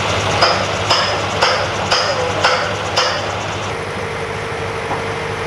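Six evenly spaced hammer blows on metal, about two a second, each with a brief metallic ring. An engine runs steadily underneath. The blows stop a little past halfway.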